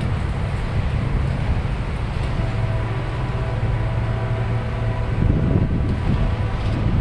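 A steady low engine hum, with a few faint steady tones above it.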